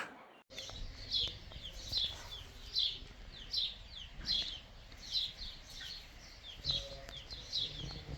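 A small songbird repeating short falling chirps, about one every three-quarters of a second, over a faint low rumble.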